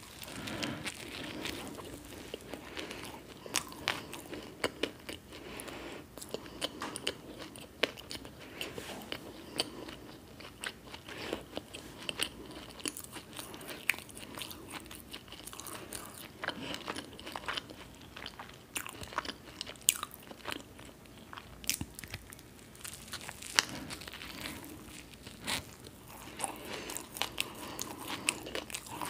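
Close-miked biting and chewing of a toasted bread sandwich filled with onion bhajiya fritters. There is a bite near the start, then steady chewing with many small, crisp crunches and crackles.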